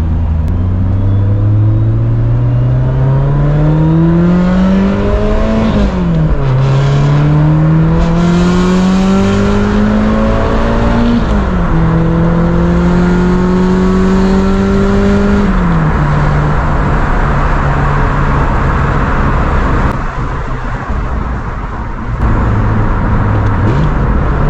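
Toyota AE86 with a SACLAM exhaust accelerating at full throttle, heard from inside the cabin with the windows open. The four-cylinder engine's note climbs, dips sharply at an upshift about six seconds in and again about eleven seconds in, holds nearly steady, then drops away as the throttle is lifted, leaving wind and road noise.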